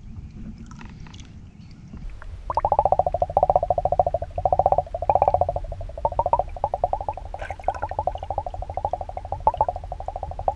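A fishing reel being cranked on a retrieve, giving a rough buzzing grind that swells with each turn of the handle, in a steady run of pulses starting about two seconds in. The reel sounds like it is running badly, one the angler calls atrocious.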